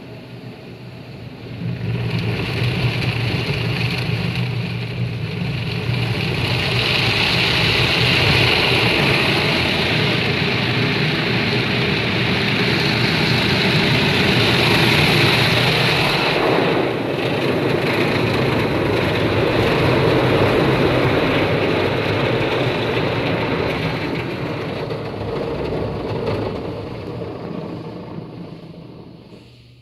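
Automatic car wash jets spraying soap and water over the car, heard from inside the cabin: a loud, steady rushing hiss with a low hum under it. It starts about a second and a half in and dies away near the end.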